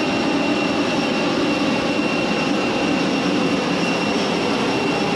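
Steady jet-aircraft noise on an airport apron: an even rushing drone with a constant thin high whine that does not change.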